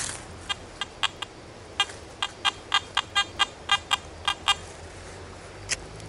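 Handheld metal-detecting pinpointer beeping in short, irregular pulses, about fifteen in all and quickest (around four a second) in the middle, as it is passed over a handful of soil and picks up the metal target in it. A brief rustle at the very start.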